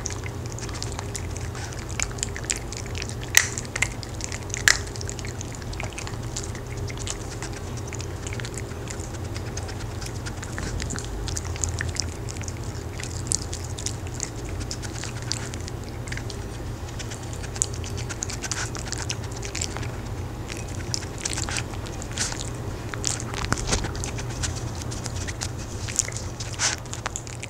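Maltese dogs crunching and chewing hard homemade sweet potato dog cookies, with many small crisp crunches throughout and two sharper cracks about three and a half and five seconds in.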